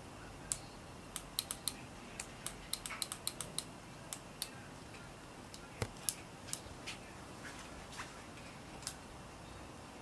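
Irregular sharp clicks of a motorcycle's handlebar switches being operated during a lamp check. The clicks come in a quick cluster in the first half and are sparser after that, with one duller knock about six seconds in. No engine is running.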